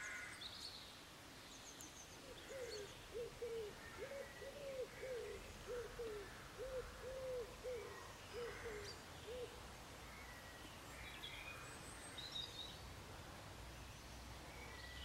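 Faint outdoor birdsong: a bird calls a run of about a dozen low, short notes, many in quick pairs, for several seconds, with scattered faint high chirps from other birds.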